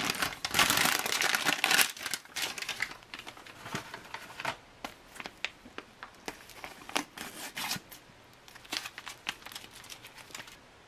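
Plastic heater bag crinkling loudly as a hot foil retort pouch is slid out of it, then sparser crinkles, crackles and a tear as the foil pouch is opened. The heavy crinkling lasts about two seconds, and the later sounds come in short, scattered bits.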